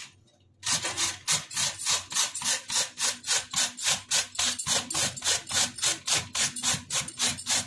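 Peeled bottle gourd rubbed hard up and down a stainless steel box grater: quick rasping strokes, about four a second, starting about half a second in.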